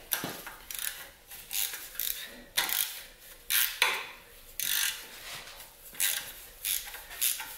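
Ratchet wrench with a 13 mm socket ratcheting in short bursts of clicks with pauses between, about eight runs, as it cracks loose the windage tray bolts on an LS V8 block. The wrench has a very strong detent.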